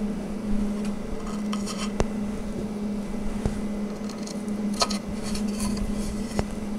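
Light clicks and taps of wooden dowels being pushed into the holes of small particleboard shelf panels and the panels being handled, a few separate knocks spread out, over a steady low hum.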